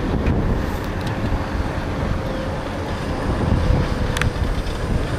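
Freight train's boxcars rolling past on the track in a steady, dense low rumble, with wind buffeting the microphone. A faint steady tone runs under it, and there is one sharp click about four seconds in.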